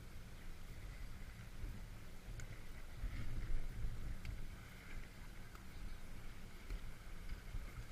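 Wind rumbling and buffeting on the microphone in uneven gusts, strongest about three to four seconds in.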